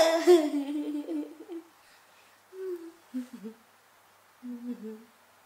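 A woman's voice making short, low hums and murmurs. The loudest is a fuller vocal sound right at the start, followed by a few brief hums with quiet gaps between them.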